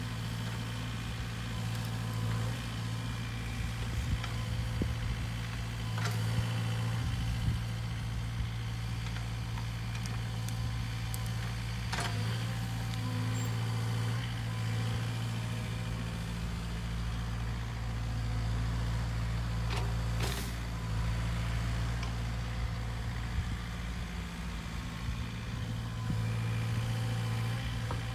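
Sany SY50U mini excavator's diesel engine running steadily as the machine works, digging out saplings and stumps, with a few sharp knocks along the way.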